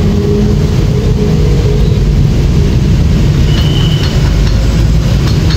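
Aipower APW 4400 pressure washer's 459 cc SUA 460 petrol engine running steadily at a constant speed, with a brief high whistle about three and a half seconds in.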